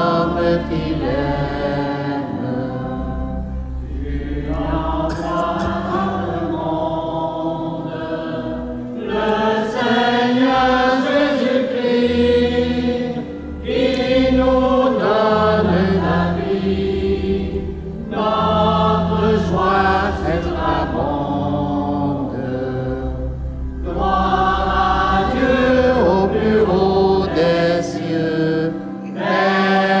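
A mixed church choir of men and women sings together in phrases a few seconds long, with brief breaths between them.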